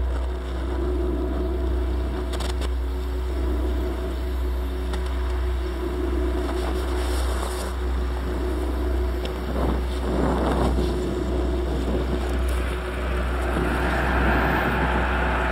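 Dark ambient drone: a steady deep low hum under several sustained tones, with a swell of noise about ten seconds in and a brighter hiss building near the end.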